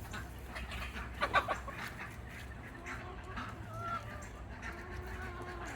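Chickens clucking, with one louder call about a second and a half in and softer short calls after it.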